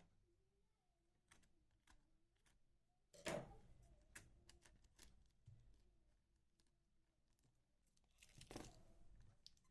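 Faint, scattered clicks of keyboard keys, with two brief, louder rustling noises, one about three seconds in and one near the end.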